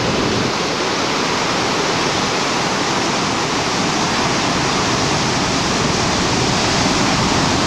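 Floodwater spilling over the overflowing Repulse Dam, an arch gravity dam, and rushing on down the river: a loud, steady, even rush of water.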